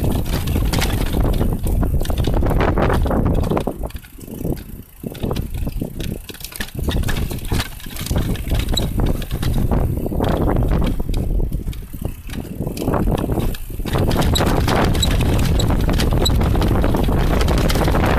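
Mountain bike riding noise on a dirt trail descent: a loud rush of air and tyre noise with the bike clattering over the ground. It turns quieter and choppier from about four seconds in, then returns to a steady loud rush for the last few seconds.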